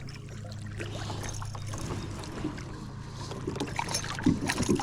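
Small splashes and water moving around a fishing kayak, with a steady low hum that fades about two seconds in. Near the end comes a cluster of louder thumps and splashes.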